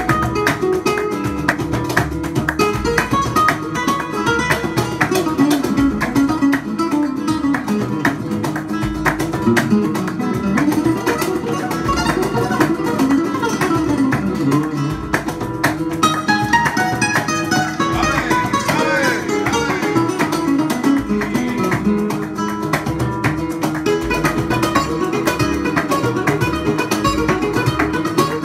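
Flamenco music on acoustic guitars with percussive strikes and low thumps running through it, played back over studio monitor speakers.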